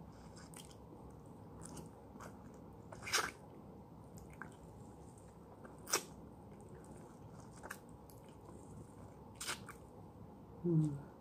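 Wet sucking, slurping and biting on a peeled lemon held to the mouth, with a few sharp slurps spaced a few seconds apart and a short hummed voice sound near the end.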